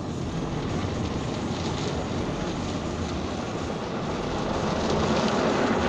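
Car wash heard from inside the car: a steady rush of water spraying against the windscreen and body, growing louder about five seconds in.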